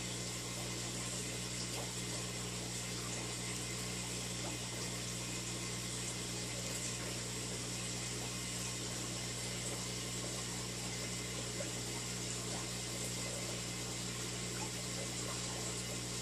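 Aquarium pump and filter running: a steady hum under an even hiss of moving water.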